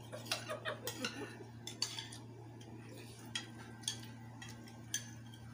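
Forks and spoons clinking and scraping against ceramic bowls as noodles are stirred and eaten: irregular sharp clicks, several in the first two seconds and sparser after. A steady low hum sits underneath.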